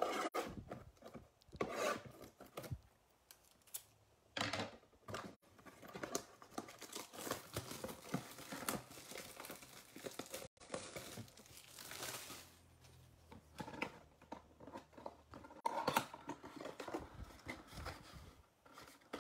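Plastic wrapping and the cardboard of a retail trading-card box being torn open and crinkled by hand, in irregular rustling tears.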